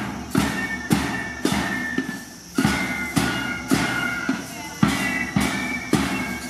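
School marching band playing a steady march, with drum strokes roughly every half second and a high melody carried over them. The beat briefly drops out a little after two seconds, then resumes.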